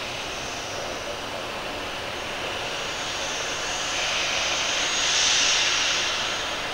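Steady jet-airliner whine and hiss from a Boeing 737-800 during pushback. It swells for a couple of seconds past the middle, then settles back.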